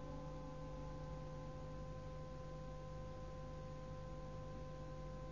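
Pause in a cassette-tape recording of Quran recitation: faint, steady tape hiss with a low hum and a few thin, steady tones.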